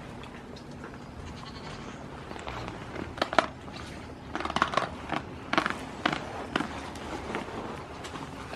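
Goats moving about in a hay-bedded wooden pen: a run of sharp knocks and clatters, several a second, from about three seconds in until shortly before the end.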